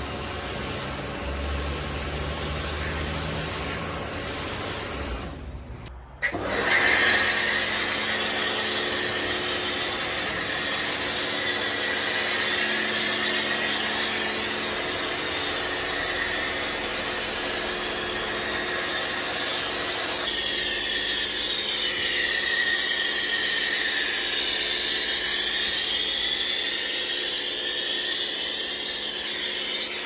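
Electric pressure washer running over the steady hum of its pump: first a water jet rinsing the car, then, after a brief break about six seconds in, a foam cannon spraying snow foam with a continuous hiss and a whistle that wavers in pitch.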